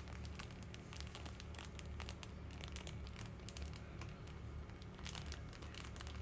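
Faint crinkling and rustling with many small irregular clicks, over a low steady hum.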